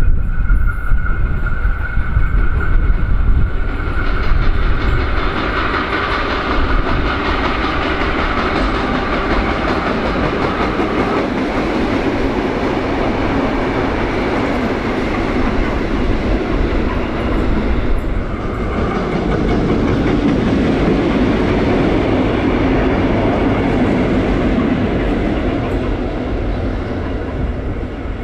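Heritage Tait electric suburban train (a "Red Rattler") running through the station past the platform, loudest as it goes by and dropping away near the end as it moves off.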